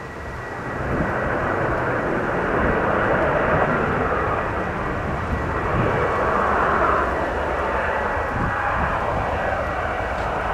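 Bombardier Global 7500's twin GE Passport turbofans running in reverse thrust during the landing rollout: a steady rushing jet noise that grows louder about a second in and then holds. A thin high whine is heard at the start and fades over the first couple of seconds.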